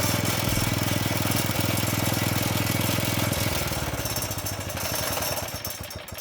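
Small portable generator engine running with a fast, even firing beat, then slowing and dying away over the last couple of seconds as it is shut off.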